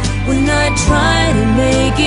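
Slow country song playing: a voice singing over instrumental accompaniment with a steady bass.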